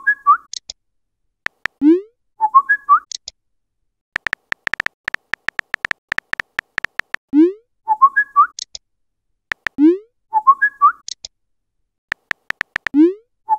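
Phone messenger sound effects: runs of rapid keyboard tap clicks as messages are typed. Each run is followed by a short rising swoop and a chirpy, whistle-like notification chime as a message is sent or arrives, and this happens several times.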